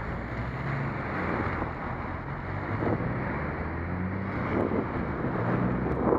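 Wind rushing over a helmet camera's microphone while cycling, over a low hum of car engines in the surrounding traffic.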